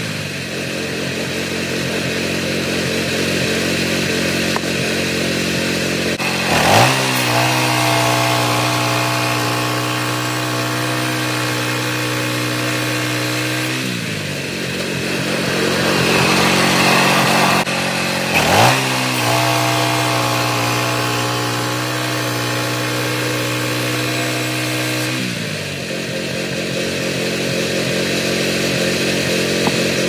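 Kohler gas engine on a manual band sawmill running steadily. It speeds up about a quarter of the way in and again just past halfway, each time with a brief loud surge, and drops back in between and near the end.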